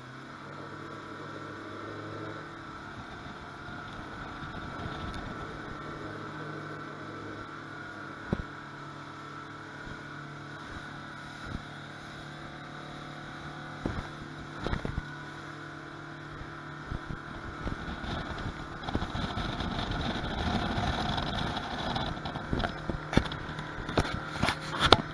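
Yamaha 115 outboard motor running steadily as the boat planes at speed. Sharp knocks from the hull slapping the chop come now and then, then more often and louder over the last third.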